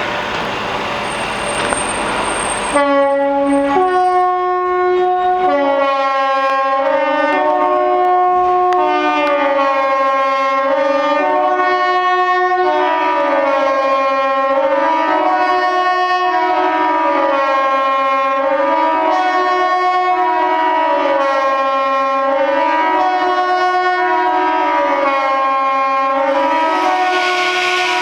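Swiss civil-defence sirens sounding the general alarm in the annual siren test: a rising and falling wail, about one swing every two seconds. It begins about three seconds in, after a few seconds of steady hiss.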